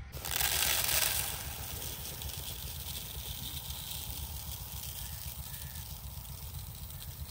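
Dry, uncooked long-grain rice pouring into a plastic bowl. A loud rush of grains comes about a second into the pour, then eases to a lighter hiss as the rice trickles from a hand. A low rumble of wind on the microphone runs underneath.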